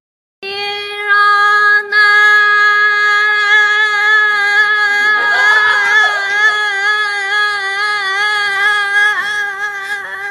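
A woman's voice holding one long sung note, steady in pitch with a slight waver, used as a voice-alarm ringtone. It starts just after the beginning and breaks briefly about two seconds in.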